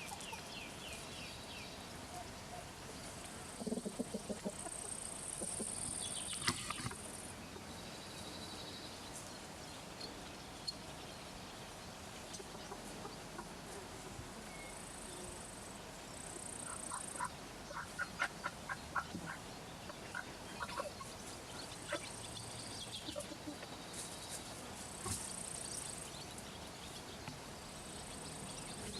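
Chickens clucking in short runs of quick notes, with intermittent high chirping in the background.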